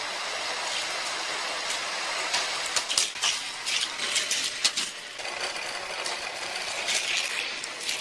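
Motorised booster units on an orange plastic toy car track whirring steadily, with toy cars rattling along the track and through the boosters; the clicks and clatters come thicker from about two and a half seconds in.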